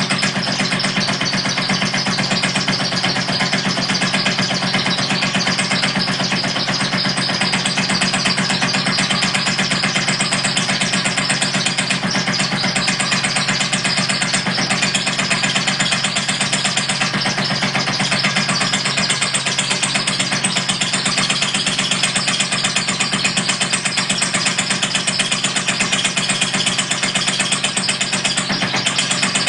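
A small engine running steadily with rapid, even beats, driving a rubber squeaking hen up and down on a rope; the hen's squeaks ride over the engine noise.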